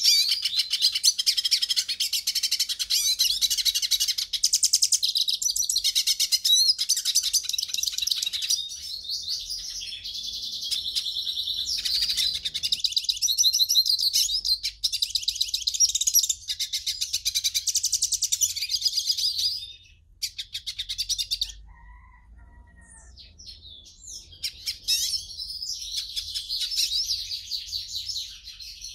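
European goldfinch singing a long, fast twittering song of rapid trills and chirps, breaking off about twenty seconds in for a few seconds of sparse, quieter notes before starting up again near the end.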